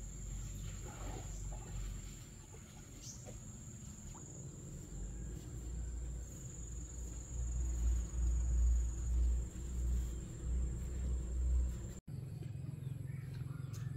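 A steady high-pitched insect drone, with low gusts of wind buffeting the microphone that grow stronger in the second half. The insect drone cuts off abruptly near the end.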